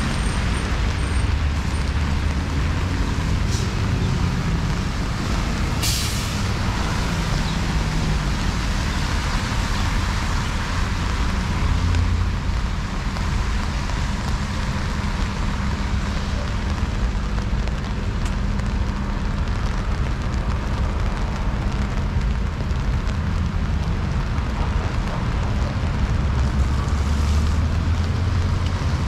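City street traffic in the rain: a steady hiss of rain and wet road noise with the low rumble of passing vehicles. There is a brief hiss about six seconds in.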